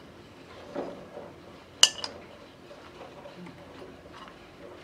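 Apricot stones clinking in a steel bowl as a child handles them, with one sharp metallic clink that rings briefly about two seconds in.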